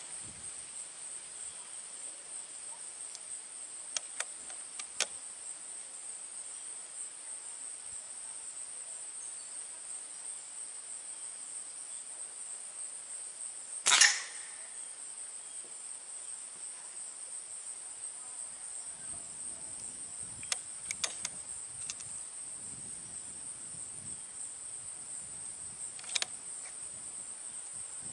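A single shot from a .177 Diana Trail Scout CO2 air rifle about halfway through: one sharp crack with a short tail. It stands over a steady high insect buzz. A few faint clicks come before and after the shot.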